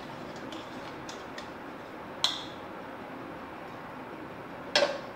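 Stainless-steel kitchenware clinking: a sharp ringing clink about two seconds in and a louder double clink near the end, with a few faint ticks before them, over a steady low hiss.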